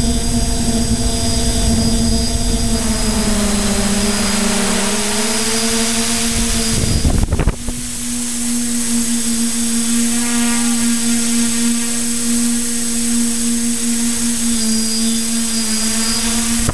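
Multirotor drone's electric motors and propellers humming steadily, heard from its onboard camera, the pitch sagging briefly twice as the motors adjust. A short rough rush of wind on the microphone comes about seven seconds in.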